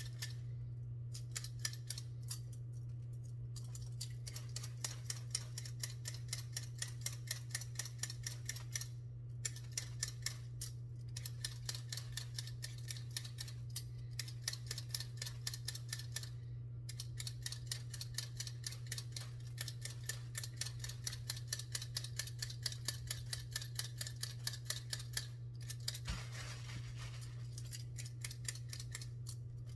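A hand vegetable peeler scraping potatoes in quick repeated strokes, a few a second, in bouts with short pauses, over a steady low hum.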